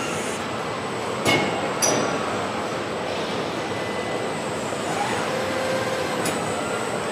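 Car-factory production line running: a steady mechanical hum and hiss from conveyors and machinery, with two sharp metallic clanks about a second in and a lighter one near the end.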